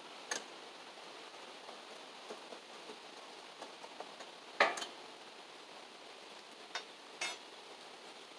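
A few light metal clinks and one sharp clank about four and a half seconds in, as a long metal tool hooks and lifts the wire cooking grate off a small charcoal grill. A last clink near the end rings briefly.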